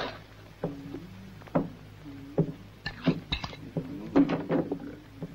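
A spoon clinking and scraping against an iron frying pan and plate of beans as someone eats, about a dozen sharp, separate clinks.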